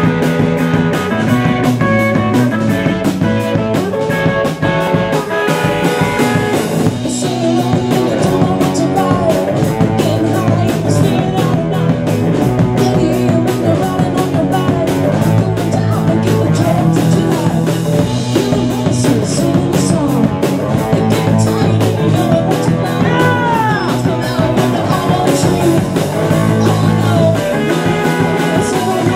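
Live rock band playing a song: electric guitar and drum kit keeping a steady beat, with a woman singing into a microphone.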